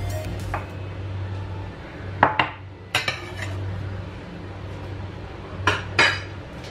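A ceramic plate knocking against a stainless steel bowl as falafel mixture is tipped into it: about four sharp clinks, two around two to three seconds in and two near the end, over a steady low hum.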